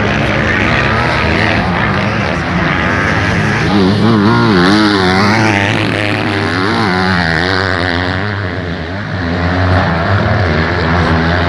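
Motocross bike engines revving around the track, their pitch repeatedly rising and falling with throttle and gear changes, strongest a few seconds in.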